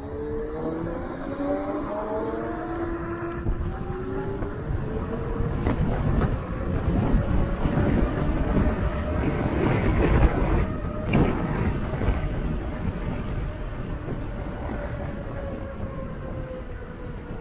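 Electric bike's motor whining as it rides, its pitch rising at the start as it speeds up, then holding a steady whine that drifts gently up and down. Wind rushes over the microphone throughout, loudest in the middle.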